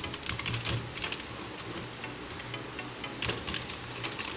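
Keys of a Marvo K632 semi-mechanical (half-membrane) gaming keyboard being typed on fast: a rapid clatter of key clicks, thinning out for a moment in the middle before picking up again.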